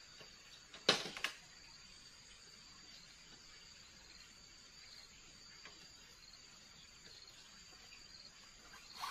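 Forest insects, crickets, chirping steadily in a high band, with evenly repeating pulses. Two sharp knocks come about a second in, a third near the end.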